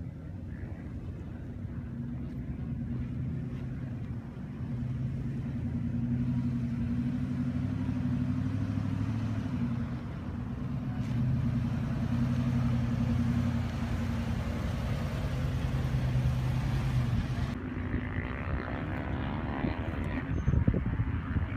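Nissan Armada's 5.6-litre V8 running at low revs as the SUV crawls over dirt mounds, growing louder as it comes closer. There are a few knocks near the end.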